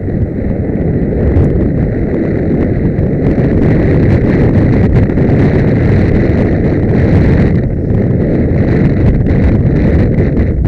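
Heavy wind buffeting on a helmet camera's microphone as a horse gallops cross-country, with the beat of its hooves on turf underneath.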